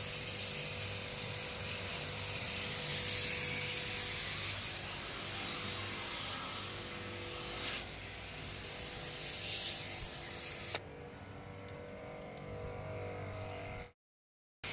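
Pressure-pump water jet spraying onto a split AC's choked outdoor condenser coil to wash out the dirt: a steady hiss over the pump's hum. About three-quarters of the way through the spray cuts off, leaving the hum, and near the end the sound drops out entirely.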